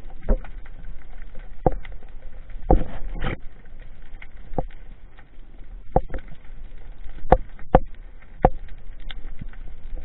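Underwater sound heard through a diver's camera: a low steady rumble with several sharp clicks and knocks scattered through, and a short rush of noise about three seconds in.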